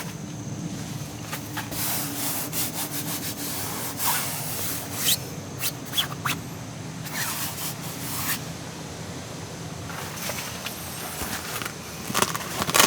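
Irregular rubbing and scraping as camping gear is handled, a series of short rustles of uneven strength, over a faint steady hum.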